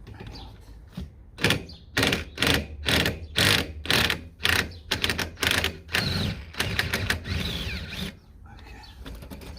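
Hand ratchet with a 16 mm socket turning a shock-absorber mounting nut, clicking in quick back-and-forth strokes about twice a second from about a second and a half in, running more continuously near the end.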